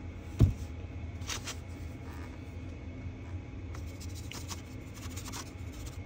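Steady low background hum with one thump about half a second in, then light clicks and rustles of small items being handled on a workbench.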